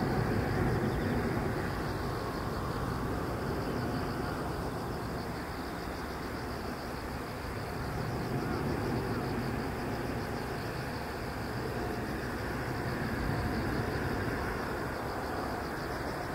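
Jet noise from a Japan Airlines Boeing 777-300, a twin-engine airliner, climbing out after takeoff. It is a steady noise, heaviest in the low range, that eases a little midway and swells again near the end.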